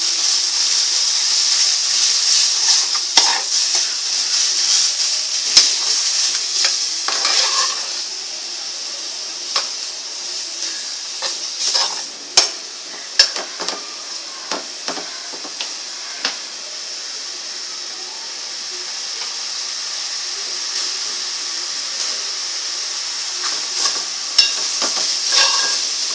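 Wet green masala paste of coconut, coriander, ginger and garlic sizzling in hot oil in a metal pan while a metal spoon stirs and scrapes it. The spoon knocks against the pan again and again, and the sizzle eases after the first several seconds.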